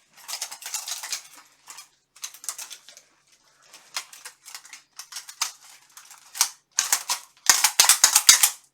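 Articulated steel armour gauntlets clinking and rattling as they are flexed and handled: clusters of quick metal clicks with short gaps, loudest in a dense rattle near the end.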